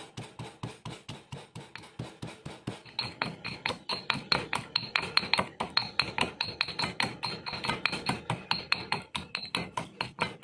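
Stone pestle pounding garlic, ginger, shallots and salt in a stone mortar into a paste: a steady run of about four strikes a second, each strike taking on a high ring from about three seconds in.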